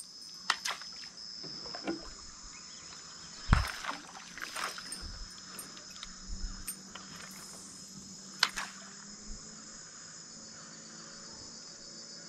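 Steady high-pitched chorus of evening insects, crickets or similar, shrilling without a break. Several sharp knocks and clicks cut through it, the loudest about three and a half seconds in with a dull thump.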